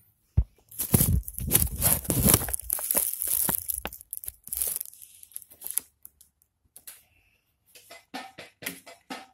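Phone handling noise: a sharp click, then several seconds of loud rustling and scraping against the microphone as the phone is moved and set still. Near the end, music with a steady beat starts.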